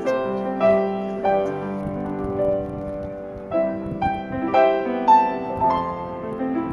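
Piano music: a slow melody of sustained notes with chords beneath.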